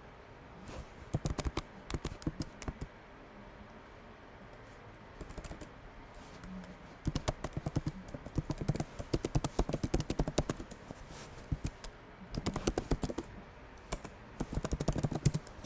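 Typing on a computer keyboard: several quick bursts of key clicks with short pauses between, the longest run in the middle.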